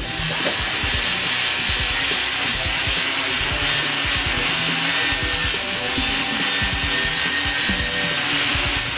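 Continuous abrasive scrubbing with no break or stroke rhythm, paint being stripped from the vise during restoration, over irregular low knocks.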